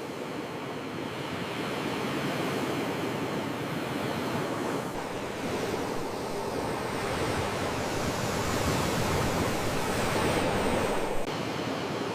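Sea waves washing on the shore as a continuous rushing surge, swelling over the second half and cut off abruptly near the end.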